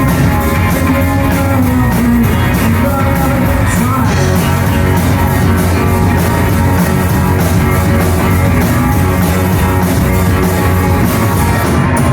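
A live indie rock band playing loud and steady, with electric guitars, bass and drums keeping an even beat.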